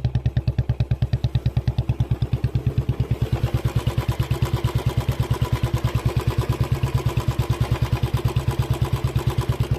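Royal Enfield Bullet 350's single-cylinder engine running at a steady, even exhaust beat while riding at an unchanging speed. A rushing hiss builds under it from about three seconds in.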